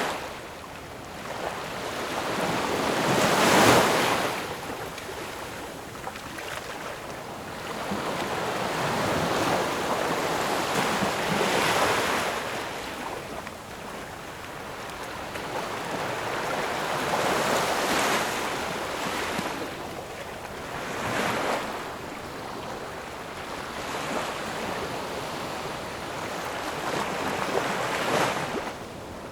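Ocean waves breaking on a shore, each one swelling and then washing back, about every six to eight seconds.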